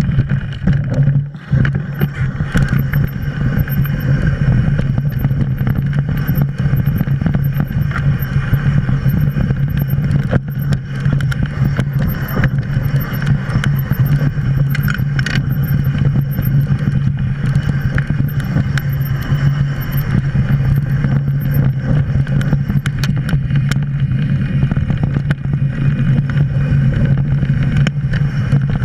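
Mountain bike running down a rough dirt singletrack: wind buffets the action camera's microphone as a steady low rumble, while the tyres and bike frame rattle and knock over rocks and roots. The noise drops briefly about a second in.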